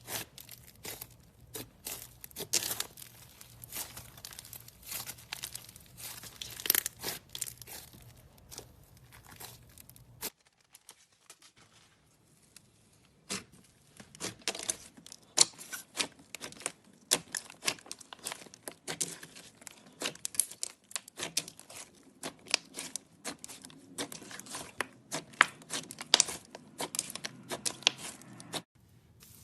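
Slime being worked by hand, giving rapid, irregular crackling clicks and pops. There is a brief lull about a third of the way in, then the crackling starts again.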